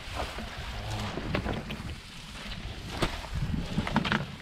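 Wind buffeting the microphone, with grass and lotus leaves rustling and brushing as someone pushes through tall marsh vegetation; a few sharper brushes stand out, about a second and a half in, three seconds in and near the end.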